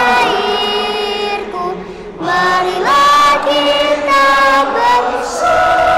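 Several voices singing long held notes together like a choir, with a girl's voice singing along close to the microphone. The sound dips briefly about two seconds in, then the singing resumes.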